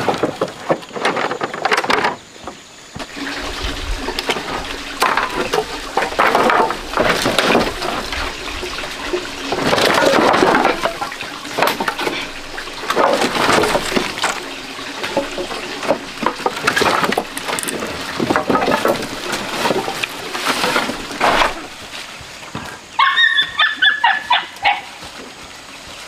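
Wooden poles and logs knocking and clattering against each other as they are pulled from a pile and stacked, in irregular bursts. A few short animal calls come near the end.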